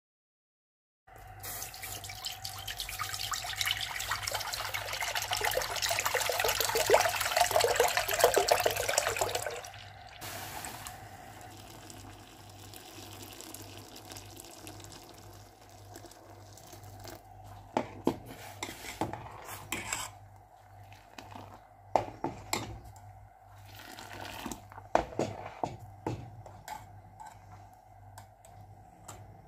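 Kashmiri chai tea liquor poured from a jug through a steel mesh strainer into a steel pot: a loud splashing pour for about eight seconds that stops suddenly. After it, a quieter pour into milk and a steel ladle stirring in the pot, with a few sharp clinks against the metal.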